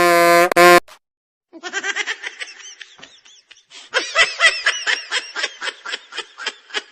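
A laughing meme sound effect: after a buzzy held tone cuts off under a second in and a brief gap, a long bout of rapid, high-pitched laughter runs on, growing louder about four seconds in.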